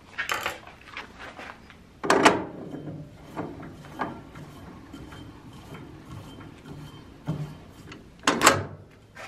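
Metal clunks and clatter of a heavy lathe chuck with plastic jaws being handled and screwed onto a wood lathe's headstock spindle. There are two loud knocks, one about two seconds in and one near the end, with lighter knocks between.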